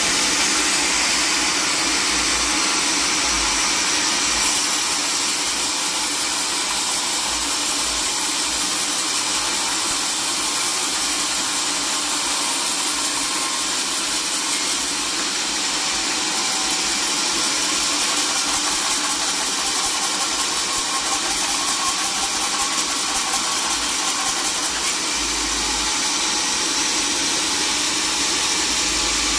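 Sawmill machinery running steadily: a constant engine-like mechanical noise, with a fine rapid rattle from about a third of the way in until near the end.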